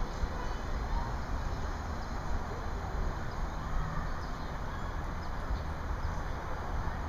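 Wind buffeting a small camera's microphone from a moving aerial-tramway gondola: a steady, uneven low rumble.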